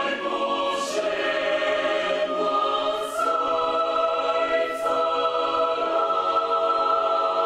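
Mixed choir singing held, sustained chords that change about three seconds in and again near five seconds, with a few sung 's' consonants cutting through.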